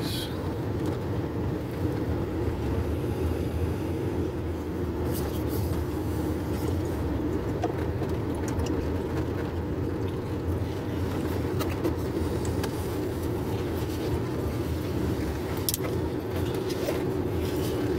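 Steady engine and road noise of a car driving along at an even speed, with a few faint clicks.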